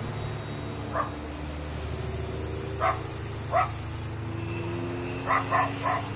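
Dual-action airbrush spraying paint in two bursts, a hiss that starts about a second in, stops around four seconds and resumes about five seconds in, over the steady hum of a small piston air compressor running. A dog yips several times, three in quick succession near the end.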